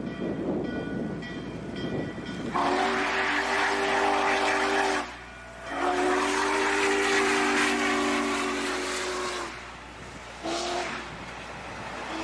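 Norfolk & Western 611, a J-class 4-8-4 steam locomotive, sounds its chime whistle in the grade-crossing pattern as it passes: two long blasts, a short one and a long one starting near the end, over the steady noise of the running train.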